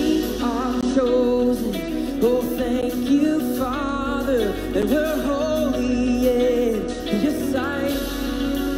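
Contemporary worship song: a man singing the melody over acoustic and electric guitars, with held bass notes underneath.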